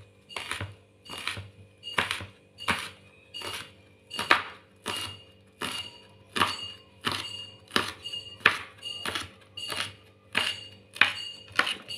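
Chef's knife slicing red curly chillies on a wooden cutting board: a steady run of knocks of the blade on the board, about three a second.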